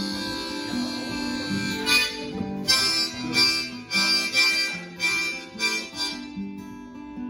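Instrumental break of a band's song with no singing: a held melody line over guitar, joined about two seconds in by sharp rhythmic hits that thin out near the end.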